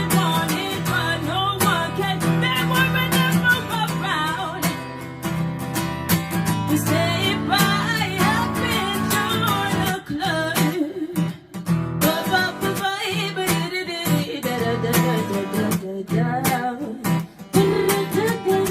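Acoustic guitar strummed in a song's instrumental break, with a woman singing at times over it; the guitar drops away briefly twice about ten seconds in.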